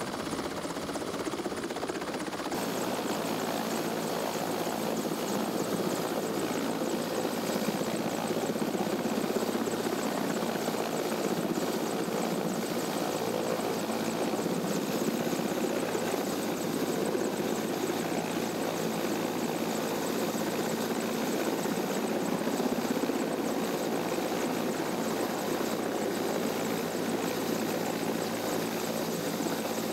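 Helicopter running steadily, a continuous engine and rotor noise with no break.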